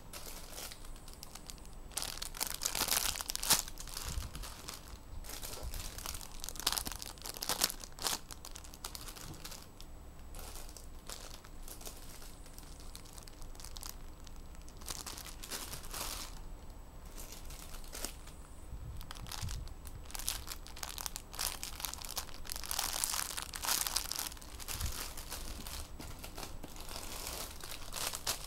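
Clear plastic bags crinkling in irregular bursts as hands handle bagged squishy toys, loudest a few seconds in and again near the end.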